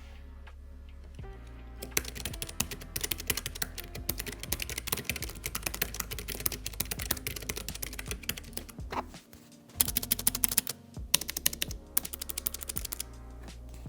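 Fast typing on a Keychron K3 V2 low-profile mechanical keyboard with brown optical switches: a dense run of key clicks starting about two seconds in, a short pause a little past halfway, then more bursts of keystrokes. Background music runs beneath.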